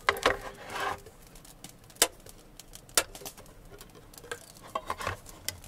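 Tin of stewed beef being opened by hand: a brief rustle, then sharp metal clicks about a second apart and a quick cluster of clicks near the end as the lid gives.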